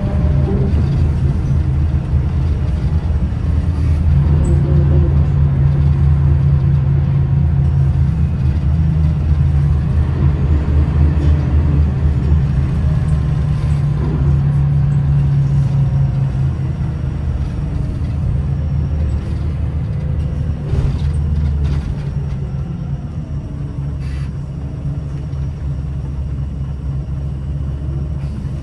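Scania L94UB bus engine and ZF Ecomat automatic gearbox heard from inside the saloon, pulling steadily with a low drone for the first half, then easing off and quieter as the bus slows. A short knock near three-quarters of the way through.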